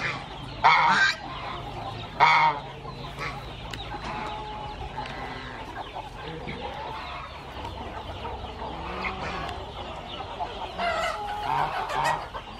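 Chickens clucking, with two loud, short calls about one and two seconds in and another flurry of calls near the end.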